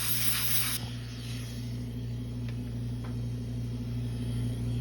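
Steady electrical mains hum. A hiss of rushing air cuts off suddenly a little under a second in.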